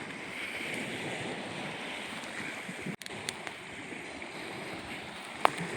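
Steady washing noise of small waves on a lakeshore, with a few faint sharp clicks, one a little past halfway and one near the end.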